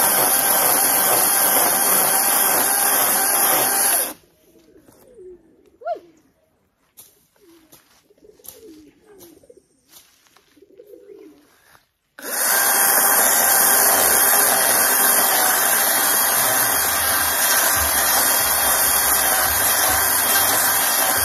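Chainsaw running at full speed as it cuts into a tree trunk. It stops about four seconds in and starts again about eight seconds later. In the quiet pause a dove coos.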